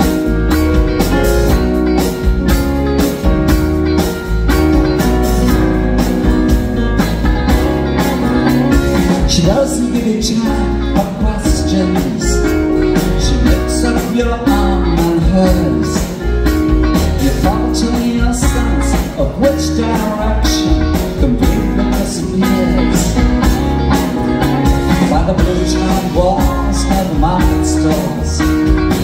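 Live soft-rock band playing: drum kit, bass, electric guitars, keyboard and acoustic guitar, with a man singing lead from about ten seconds in.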